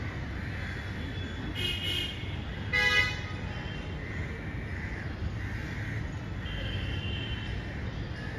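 Steady traffic hum with one short vehicle horn toot about three seconds in, the loudest sound here. Crows caw a couple of times around it.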